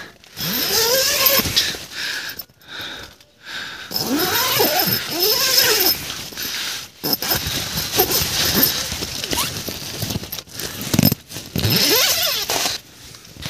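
Tent door zipper pulled open in several separate pulls, each a rasp that rises and falls in pitch with the speed of the hand, with nylon tent fabric rustling in between.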